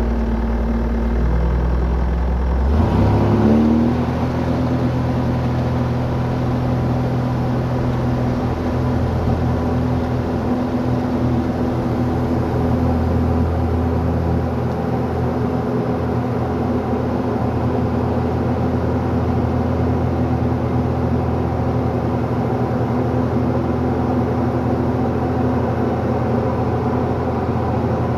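Esqual VM-1 light sport airplane's engine and propeller brought up to full power for takeoff. The pitch rises steeply about three seconds in, then the engine runs steadily at full throttle through the takeoff roll and climb-out, heard from inside the cockpit.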